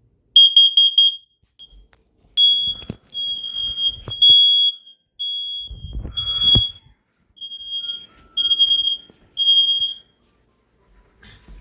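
Home smoke alarm sounding its shrill, high-pitched beep: first a rapid run of short chirps, then eight longer beeps of about half a second each at uneven gaps. A low thump comes in the middle.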